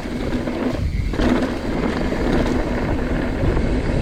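Mountain bike running fast down a rocky trail: wind rushing over the microphone, mixed with the rumble and rattle of tyres and bike over rocks.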